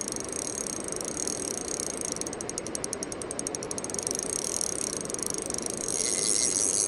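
Spinning reel ticking in a fast run of ratchet-like clicks about two seconds in, with a hooked fish on the line that the angler takes for a pike.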